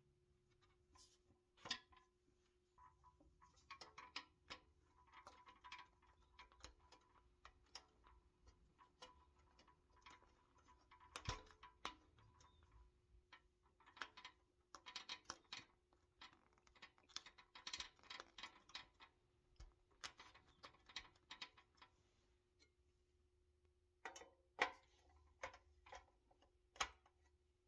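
Faint, irregular clicks and taps of small toy parts handled by hand: a rubber tire and a metal hubcap pushed onto a pressed-steel toy truck's axle, with a few sharper clicks near the end. A faint steady hum runs underneath.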